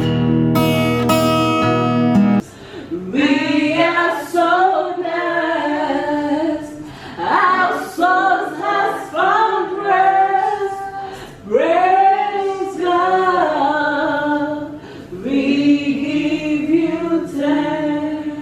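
Music: about two seconds of plucked or strummed guitar chords, then singing, led by a woman's voice, in sustained phrases.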